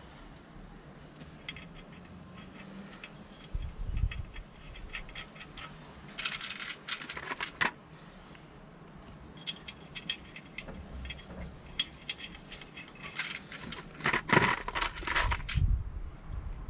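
Small metal parts and hand tools clinking and jangling as they are handled: nuts, washers and clamp fittings on a motorcycle's front fork leg. The clinks come in bunches, with a couple of dull thumps.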